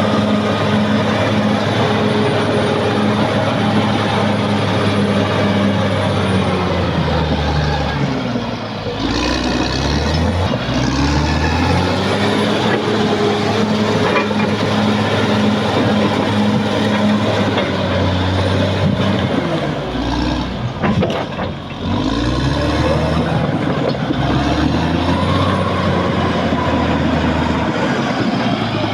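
Caterpillar D6R XL bulldozer's diesel engine running under working load. Its pitch sags and climbs back twice, about a third of the way in and again about two-thirds in, as the load changes.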